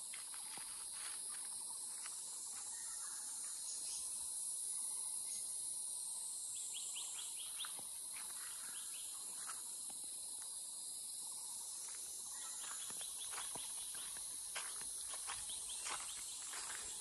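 Forest ambience: insects droning steadily at a high pitch, with two quick runs of bird chirps and scattered light clicks.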